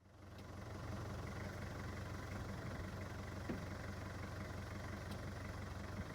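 Safari vehicle's engine idling, a steady low hum that fades in over the first second.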